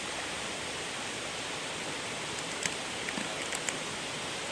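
Steady rushing of a waterfall, an even wash of water noise, with a few faint clicks in the middle.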